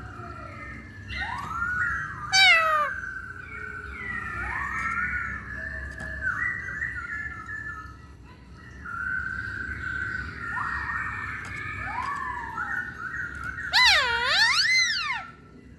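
Masked laughingthrush (poksay Hongkong) singing a run of whistled notes: upward-swooping arcs and held tones, with a loud wavering warble near the end.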